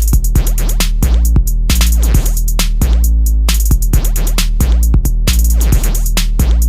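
Electronic bass music: a drum-machine beat over loud, sustained deep sub-bass tones.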